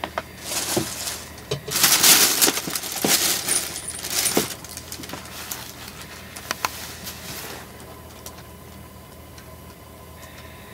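Crinkling and rustling of a plastic shopping bag and a paper sheet being handled and spread on the floor, loudest in several bursts over the first four seconds or so, then a few fainter crackles that die away.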